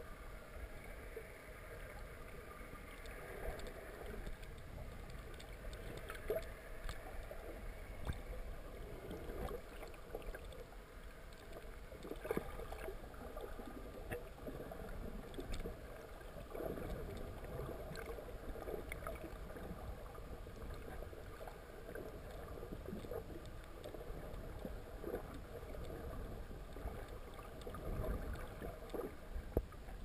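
Muffled underwater noise picked up through a GoPro's sealed waterproof housing: a steady low rumble and hiss with scattered faint clicks and knocks.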